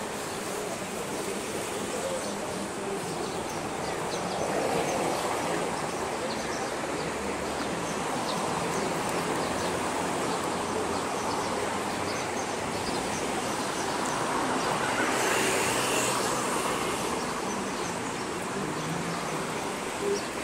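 Street traffic on a busy city avenue: a steady rumble of passing cars, swelling as vehicles go by about four seconds in and again around fifteen seconds, the second time with a brief hiss.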